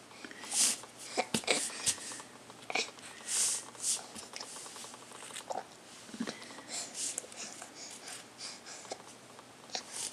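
A baby making short breathy huffs and spluttering mouth noises right at the microphone, with a few sharp clicks in the first few seconds.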